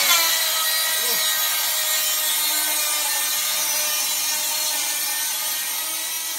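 7-1/4-inch circular saw fitted with a framing blade, cutting a long wood board. The motor runs steadily under load with a constant whine, easing slightly near the end.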